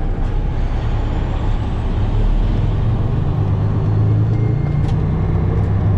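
Semi truck's engine running steadily under way, heard from inside the cab, growing a little louder a couple of seconds in.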